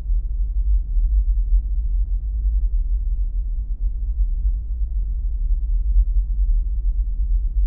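Deep, steady low hum with a rumbling, slightly wavering texture and almost nothing but the bass.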